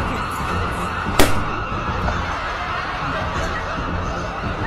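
Street commotion: a steady din of crowd noise and jostling, with one sharp bang about a second in.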